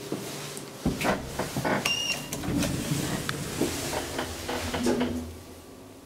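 Elevator doors sliding and clattering, with a run of clicks and knocks and one short electronic beep about two seconds in; the noise dies down near the end.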